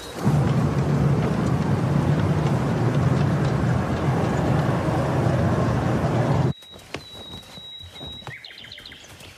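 Steady loud rumble of a train carriage heard from inside, which cuts off abruptly about six and a half seconds in. After the cut it is much quieter, with faint birdsong: a thin high whistle and then a few quick descending chirps near the end.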